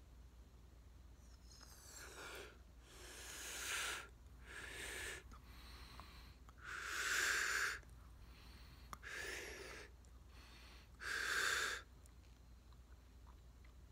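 A person breathing hard, blowing air into a large bubblegum bubble as it swells. There are about six breaths of roughly a second each, with short quiet pauses between them.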